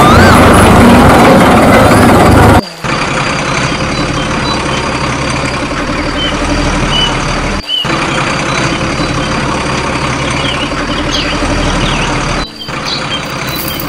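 Recorded heavy truck engine running, used as a sound effect over a toy dump truck, in sections that cut off abruptly about 3, 8 and 12.5 seconds in; the first section is the loudest.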